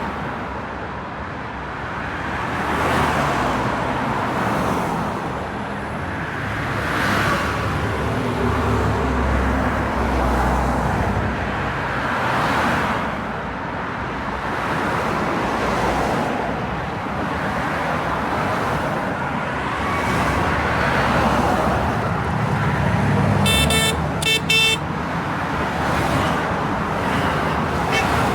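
Busy city road traffic: a steady wash of engine and tyre noise that swells and fades every few seconds as cars pass. Near the end a car horn honks a few short times.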